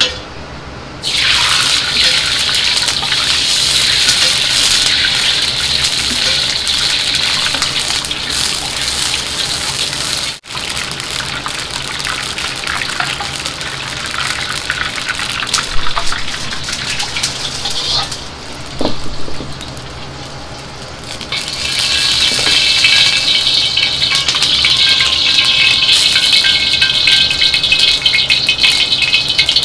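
Liquid hissing and boiling in a hot iron wok over a gas wok burner, starting suddenly about a second in as it hits the hot metal, while a ladle works through it. It dies down briefly past the middle, then hisses louder again near the end as the wok is heated nearly empty, over a steady low hum.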